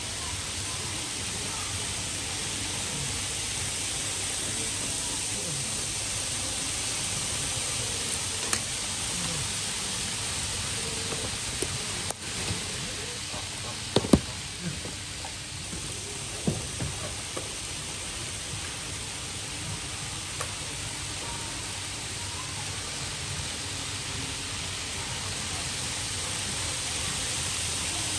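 Steady hiss of room noise around an N-scale model railway layout with N700S shinkansen models running on the track. A few sharp clicks and knocks come near the middle, the loudest about halfway through.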